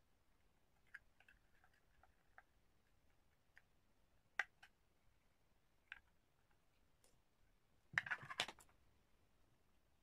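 Faint clicks and ticks of a small precision screwdriver and metal parts inside an opened iPhone 5, scattered single clicks with a short cluster of louder clicks about eight seconds in.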